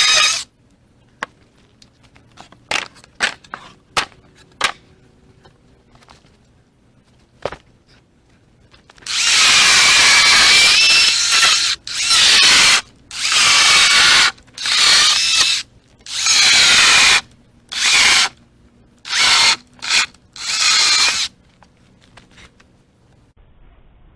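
Battery-powered chainsaw cutting firewood in a run of bursts, long at first, then shorter and choppier before it stops. The battery is running flat. A few light wooden knocks come earlier.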